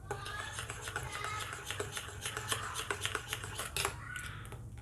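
A quick, irregular series of light clicks and taps.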